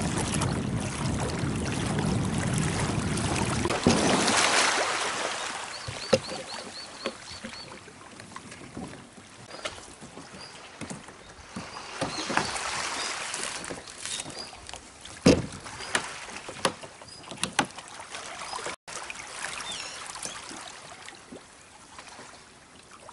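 Wind and water noise over the open sea for the first few seconds, then a quieter pebble beach with stones and gear knocking and clattering now and then, and a quick run of high chirps.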